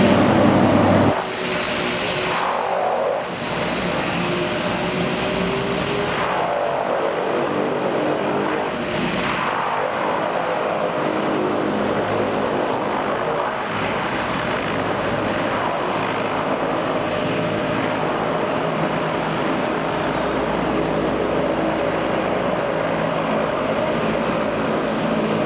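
De Havilland Canada DHC-6 Twin Otter floatplane's twin turboprop engines on its takeoff run across the water: a steady propeller drone with a stack of tones, with a few slow rises and falls in pitch. It is loudest in the first second.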